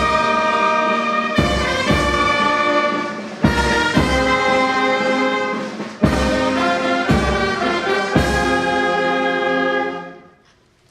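Brass band playing slow, sustained chords, each new chord struck with an accented hit, the music ending with a final held chord that dies away about ten seconds in.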